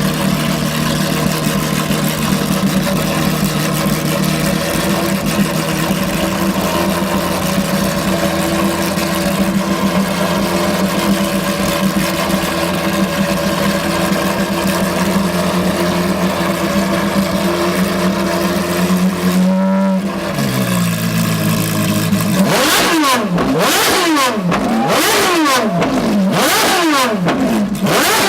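Ferrari engine held at a steady raised idle for about twenty seconds, then dropping back and being revved hard in quick repeated blips, its pitch shooting up and falling away again and again.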